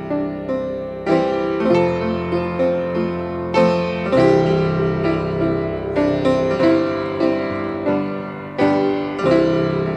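Piano music, with notes and chords struck every second or so, each ringing and fading.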